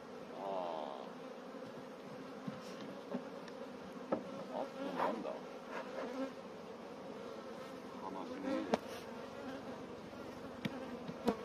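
Honeybees buzzing around an open hive: a steady hum, with single bees' buzz rising and falling close by now and then. A few sharp knocks come as the hive's wooden frames and boxes are handled.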